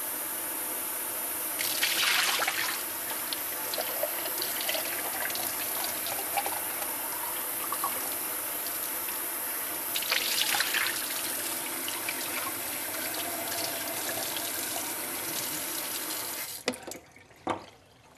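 Kitchen faucet running water into a blender cup as it is rinsed out, with louder splashing about two seconds in and again around ten seconds. The water is shut off near the end, followed by a single short knock.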